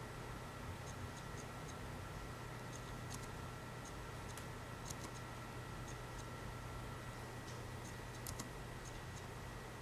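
Quiet room tone: a steady low electrical hum with a faint high whine and small, irregular light clicks scattered throughout.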